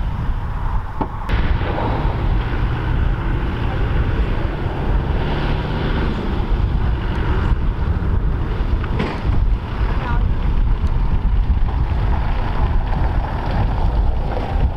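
Wind buffeting the microphone with a heavy low rumble, over a British Army Land Rover Defender's diesel engine running as it drives along a gravel track.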